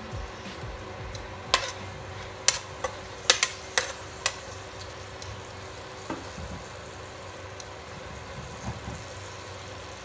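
Minced garlic sizzling in melted butter in a stainless steel pan, a steady low hiss. A quick run of sharp clicks and pops comes between about one and a half and four and a half seconds in.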